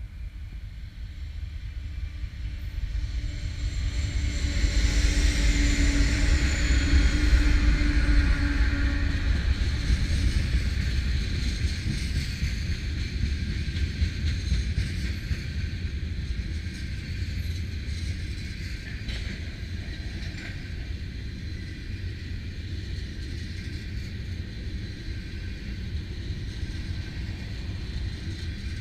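CN freight train with GE diesel-electric locomotives passing close by. The locomotives' engine rumble swells to its loudest about five to nine seconds in, then the tank cars roll by with a steady rumble of wheels on rail and a few sharp clicks.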